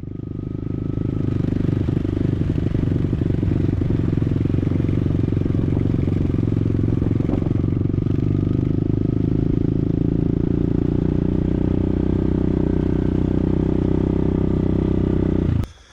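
Motorcycle engine running steadily under way. The sound cuts off suddenly near the end.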